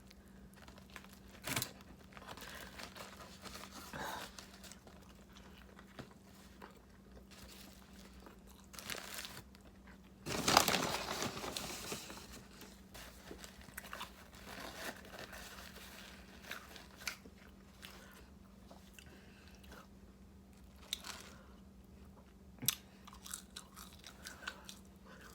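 Close-miked eating of fast food: bites and wet chewing, with scattered crunches and one long, loud crunch about ten seconds in.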